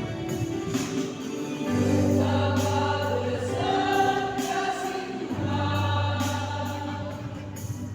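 Choir singing in held chords over a steady low bass note that sustains for a few seconds at a time.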